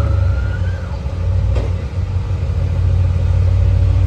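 Off-road vehicle engine running under load, a steady low rumble with a single knock about a second and a half in.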